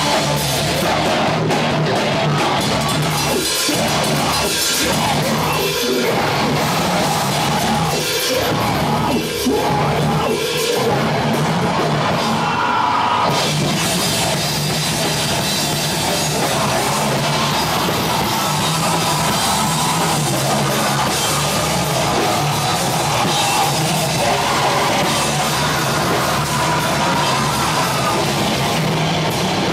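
A live heavy rock band playing loud: drum kit with cymbals and electric guitar, with hard drum hits through the first third.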